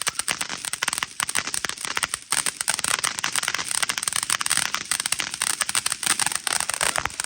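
Fireworks crackling: a dense, rapid run of sharp pops that cuts off suddenly near the end.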